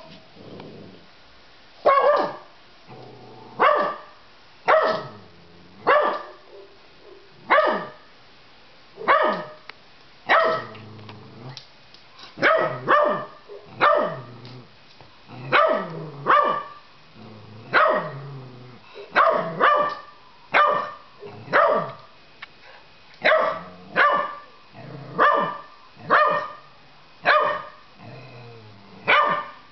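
Puppy barking over and over, short sharp barks about one a second, some in quick pairs, starting about two seconds in.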